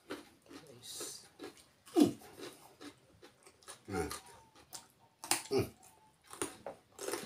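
Raw carrot being bitten and chewed with fresh leaves: irregular loud crunches, the loudest about two seconds in, mixed with short grunting mouth sounds between bites.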